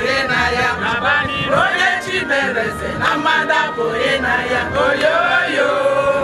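Music with a choir of voices singing over held instrumental tones.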